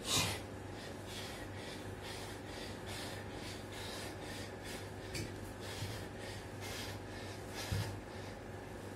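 A man's heavy, rhythmic breathing from exertion during burpee push-ups: quick, hissy breaths about two a second, after a louder burst of breath or impact as he drops into the plank, with a few soft low thumps on the floor later on.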